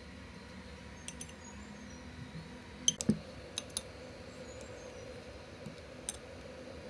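Allen key clicking and clinking against the metal end cover of an aerator motor as its screws are worked: a scatter of sharp metallic ticks, with a heavier knock about three seconds in.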